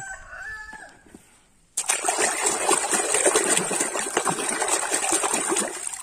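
A faint rooster crow at the start, then, from just under two seconds in, water splashing and pouring steadily in a tub of soapy water.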